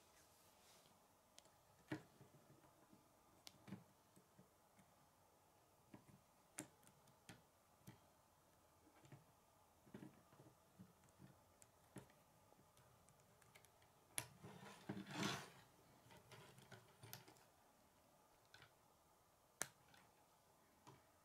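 Faint, scattered clicks and knocks of plastic K'nex rods and connectors as the model is handled, with a short, denser rattle about two-thirds of the way through.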